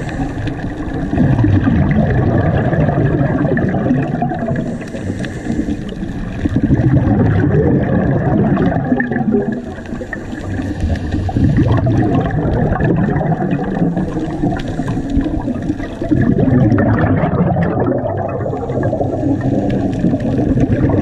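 Scuba divers breathing through their regulators, heard underwater through a camera: a steady muffled water rumble with bursts of exhaled bubbles about every five seconds.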